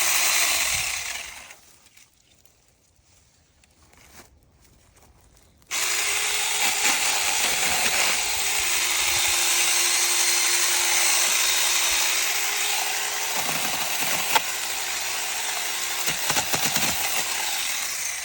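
Cordless electric mini chainsaw running, stopping about a second and a half in, then starting again suddenly around six seconds in and running steadily with a whining motor tone. The tone dips briefly a few times under load.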